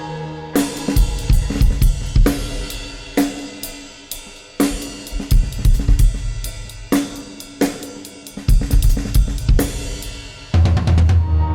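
Music: a drum kit with cymbals and hi-hat playing a busy run of sharp strikes over held pitched notes, with recurring stretches of heavy bass.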